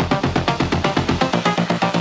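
Electronic dark trap music: a fast, even run of synth notes, about seven a second, over a deep 808 bass that drops out about a second and a half in.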